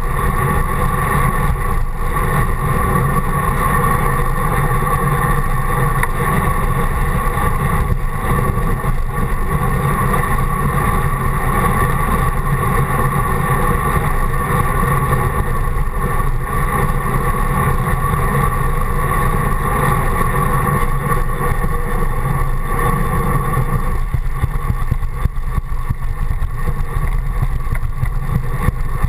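Steady, loud rush of wind and road noise picked up by a GoPro mounted on the handlebars of a moving road bike, with a low rumble under it.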